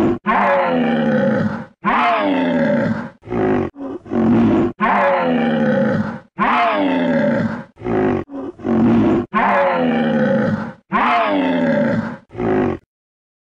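Dinosaur roar sound effect standing in for Euoplocephalus: a loud series of about ten roars with short gaps, each sliding down in pitch. They stop near the end.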